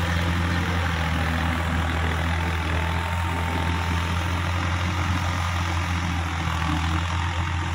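Tractor diesel engine running steadily under load, a low, even hum, as the tractor pulls a tiller through wet, muddy paddy soil.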